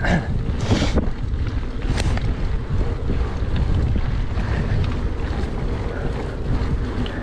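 Wind buffeting a GoPro Hero 8 Black's microphone on a mountain bike riding a dirt forest trail. It is a steady low rushing rumble mixed with the bike rolling over the ground, with a few gusts in the first second and a sharp click about two seconds in.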